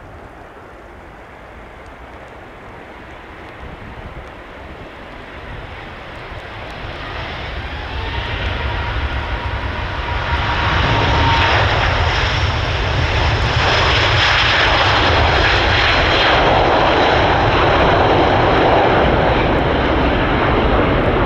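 Airbus A350's two Rolls-Royce Trent XWB turbofan engines at takeoff thrust as the jet accelerates down the runway and lifts off. The engine noise grows steadily louder over the first half, then stays loud and steady, with a faint whine rising in pitch partway through.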